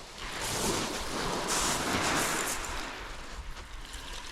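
A wave breaking on a shingle beach, its wash swelling over a couple of seconds and then fading away.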